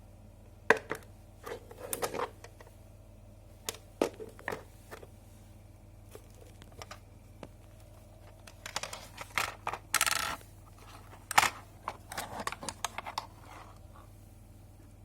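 Handling noises: scattered sharp clicks and knocks, some rustling, and a short tearing sound about ten seconds in, over a faint steady low hum.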